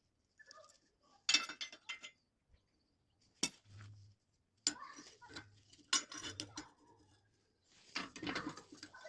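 Steel pieces clanking and clinking as they are handled and knocked together, about five sharp strikes spread over several seconds, with a faint low hum coming and going between them.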